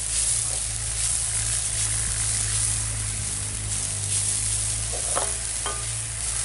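Freshly grated coconut sizzling in a black kadai over a wood fire as it is stirred with a spatula, dry-roasting on medium heat until the coconut dries out. A steady hiss.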